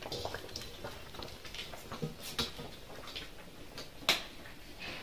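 Light, scattered clinks and taps of a slotted metal spoon against a metal pot and a steel plate as boiled pumpkin pieces are lifted out, the sharpest about four seconds in.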